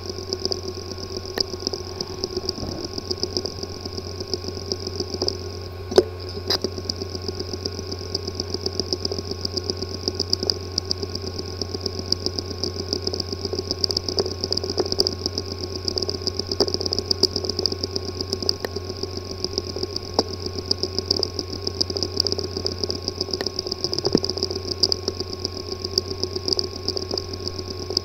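Hard disk drive with a physically damaged disk assembly, spinning with a steady hum and a high whine under rapid, irregular clicking, with one louder click about six seconds in. The clicking is the symptom of physical damage inside the drive's head and platter assembly.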